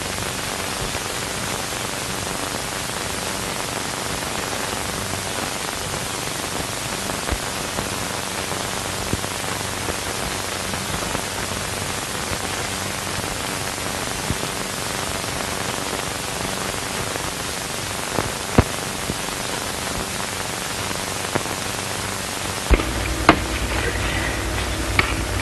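Steady hiss of an early sound-film soundtrack, with a few scattered crackle clicks. A low hum joins near the end.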